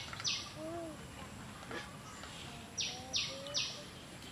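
Outdoor rural ambience with rhythmic, harsh chirping calls, about three a second, in two runs: one at the start and another from just before three seconds in. A few faint, low gliding notes sound between the runs.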